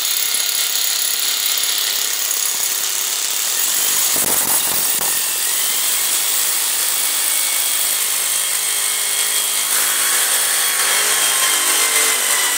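Corded rotary hammer drill boring a hole into glazed wall tile with a masonry bit, running steadily without a break.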